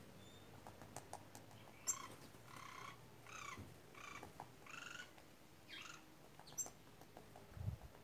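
White woodpeckers calling: a series of about six harsh, rough notes, each roughly a third of a second long, from about two to six seconds in. A few sharp taps come before and after the calls, and a low thump comes near the end.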